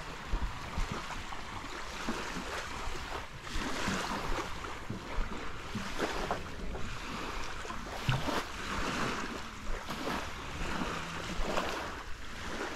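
Wind on the microphone over sea waves washing in, the noise rising and falling in uneven surges.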